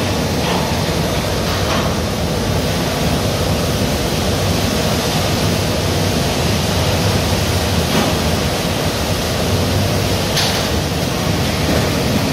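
Steady, loud machinery and ventilation noise on a hog-processing line, with a few faint clicks and knocks.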